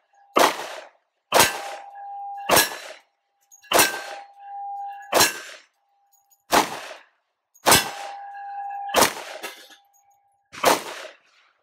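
Nine shots from a Glock 29 10mm Auto pistol, fired at an unhurried pace about one every second or so. Several rounds hit a steel plate, which answers with a clang and a steady ringing tone that lingers for a second or two.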